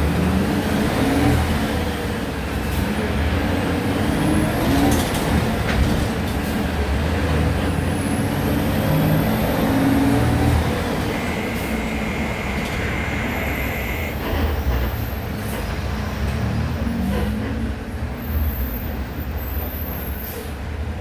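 Volksbus 17-230 OD CNG city bus running under way, the engine's pitch rising and falling. A steady high tone sounds for about three seconds just past the middle.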